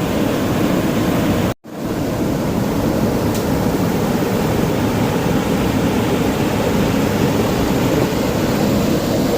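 Waterfall water rushing, a loud, steady, even noise. It cuts out for a split second about a second and a half in.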